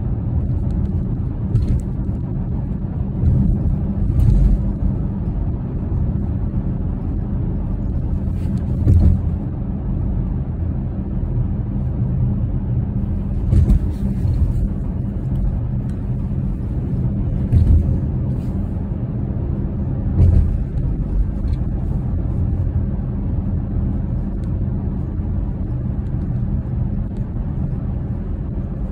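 Road noise inside a moving car's cabin on a snow-covered road: a steady low rumble from the tyres and engine, with a handful of short louder knocks every few seconds.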